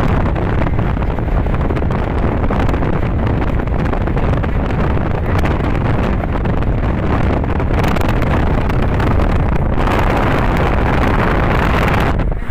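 Wind buffeting the microphone in a moving car, over a steady rumble of tyres on the road; the rush turns hissier for the last couple of seconds.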